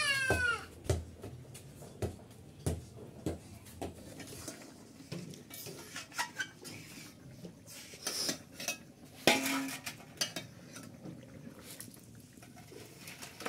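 A metal spatula knocking and scraping against a metal wok as a curry is stirred: scattered short clinks and knocks, the strongest about eight and nine seconds in.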